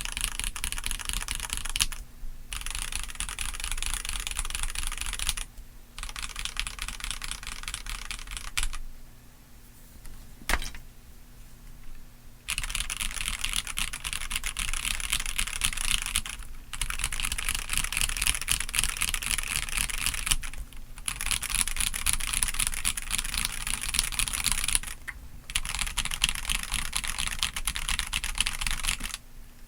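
Keychron C3 Pro gasket-mounted tenkeyless mechanical keyboard, in stock form, typed on fast in runs of several seconds broken by short pauses, with a longer lull about nine to twelve seconds in.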